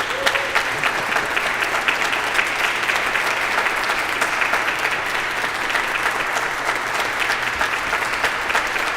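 Congregation applauding steadily, a dense patter of many hands clapping.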